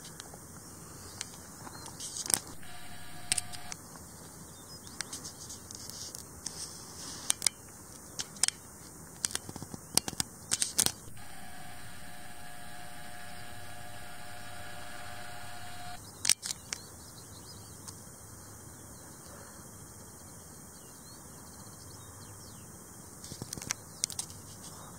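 Handheld camera noise: scattered handling clicks over a faint steady high hiss, with a steady motor whine twice, once briefly and once for about five seconds, typical of a camera's zoom motor.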